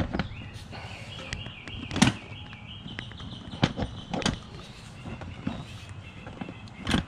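Motorcycle seat being fitted back onto the bike: a series of knocks and clunks, the loudest about two seconds in, over a faint steady high tone.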